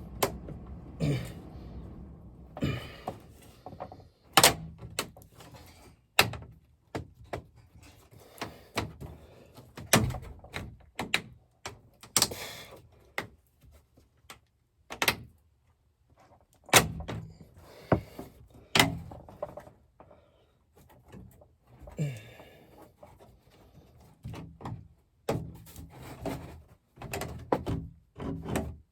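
Irregular knocks and thuds from hands-on work on a dryer vent duct, with a few dozen separate impacts and no steady machine running.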